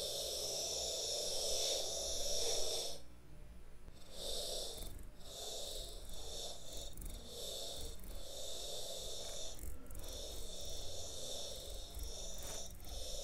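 S Pen tips scratching across Galaxy Note20 Ultra glass screens, slowed to quarter speed into a drawn-out rasp. It breaks off for about a second some three seconds in, and briefly a few more times, as the pen lifts between strokes.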